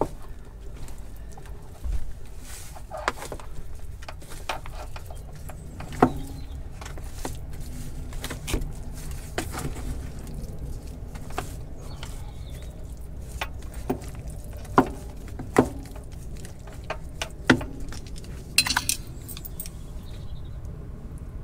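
Wooden spoon stirring cauliflower cheese in an aluminium foil tray: irregular light knocks, scrapes and clinks, with a few sharper knocks and a short flurry of clatter near the end as sauce is spooned from a metal saucepan.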